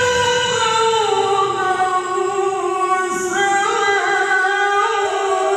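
Melodic Quran recitation (tilawah) by a male qari, a single voice holding long, ornamented sung notes. The pitch shifts to a new phrase about three seconds in.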